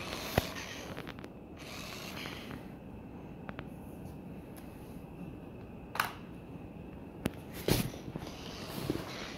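Faint whir of a small toy RC car's electric drive motor, with several sharp clicks and knocks, the loudest of them near the end.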